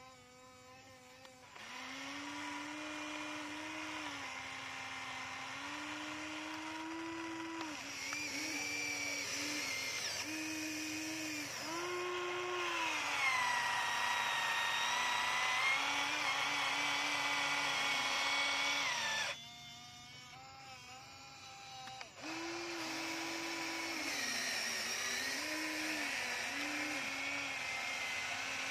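Electric motors of a Huina radio-controlled toy excavator whining as it digs, the pitch stepping and gliding up and down as the boom, arm and bucket move. The whine drops away for a few seconds about two-thirds through, then starts again.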